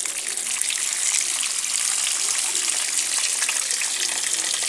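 Water falling in a steady stream from an upper plastic tray onto germinating maize seeds in the tray below, a continuous splashing hiss.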